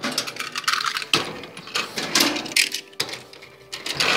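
Irregular clattering and knocking with rustling between, like hard objects being handled and rattled close to the microphone.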